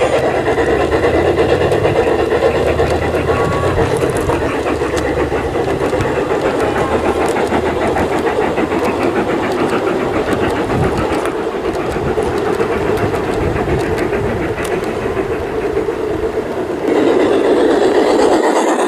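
Large-scale garden railway train rolling past on its track: a steady rumble of wheels with scattered light clicks. Near the end the sound changes abruptly to a louder run with less low rumble.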